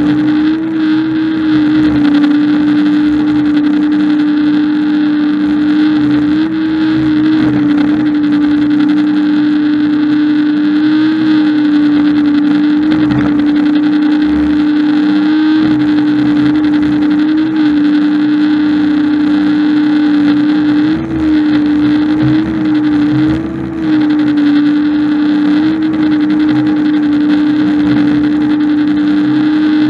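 Engine of a heavy machine running steadily at high speed, holding one pitch with small brief rises and a couple of short dips under load.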